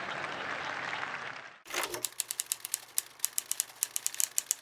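Audience applause dying away, then after an abrupt cut a run of sharp, irregular clicks, about five or six a second, over a faint low hum.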